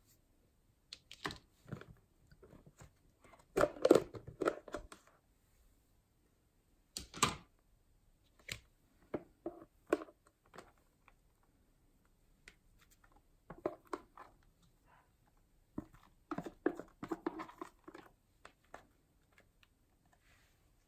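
Hands handling plastic containers over a glass bowl: clicks and knocks of a plastic container and its lid, then a spatula scraping thick white foam with glitter out of a clear plastic tub, in short scattered bursts with quiet gaps between.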